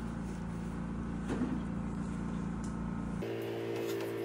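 Steady low machine hum, its tone changing abruptly about three seconds in, with a few faint ticks.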